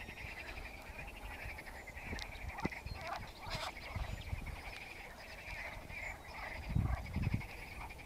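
A chorus of frogs calling from the lake, many rapid trilling croaks overlapping into an unbroken chorus. A few low thumps about seven seconds in.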